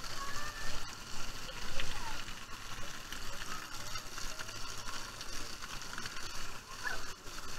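Water park play area: scattered distant shouts and squeals of children over a steady hiss of spraying water.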